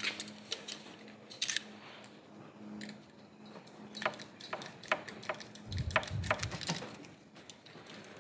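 Soft clicks, taps and rustles of hands pressing a self-adhesive rubber seal onto a pop-out window's frame and peeling back its protective paper, with a few low knocks about six seconds in.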